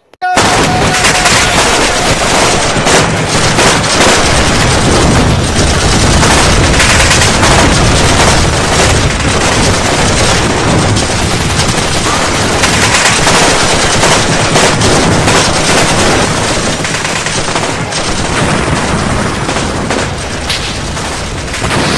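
Dense battle gunfire: rapid machine-gun bursts and rifle shots overlapping with no break, starting abruptly.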